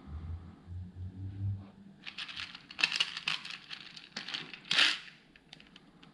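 Small plastic Lego Technic pieces clicking and rattling as hands rummage through them: a run of sharp clicks and rustles, loudest about three and five seconds in, after a few dull knocks at the start.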